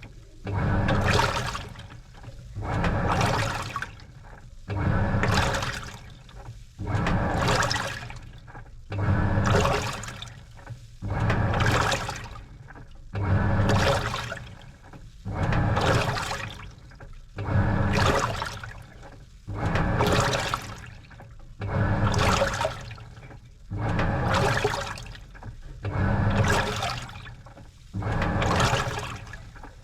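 Washing machine mid-wash, water and laundry sloshing in the drum with each turn: an even swoosh about every two seconds.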